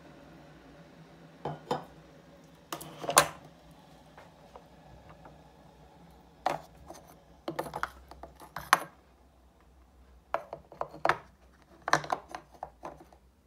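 Clinks and rattles of a stainless steel cup and the metal pad holder of a Senseo Latte Duo pod coffee machine being handled and fitted into place: a series of sharp metallic knocks in clusters, the loudest about three seconds in.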